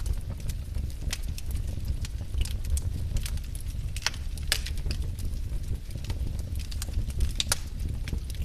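Wood fire burning: a steady low rumble of the flames with frequent irregular crackles and pops from the logs, a few sharper pops about four seconds in and again near the end.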